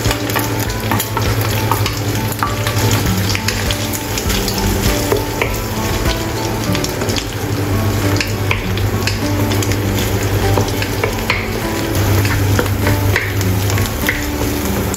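Crushed salted egg and a fried egg sizzling in hot oil in a nonstick wok, stirred and pushed around with a wooden spatula that gives small scrapes and taps against the pan.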